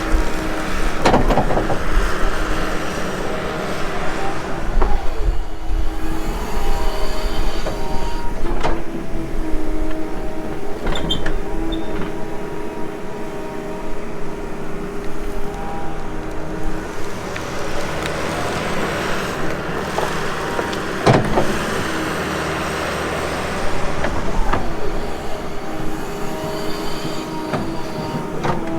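Diesel engine of a heavy tracked earthmoving machine running steadily under load, with sharp metal clanks now and then.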